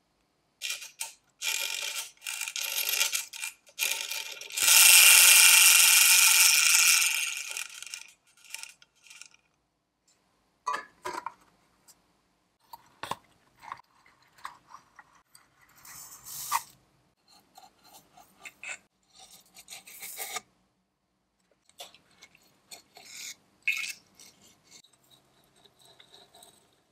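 Soldering iron melting solder into the seams of a tinplate toy hull: flux sizzling in bursts, longest and loudest about five seconds in, followed by short scrapes and ticks of the iron's tip on the metal.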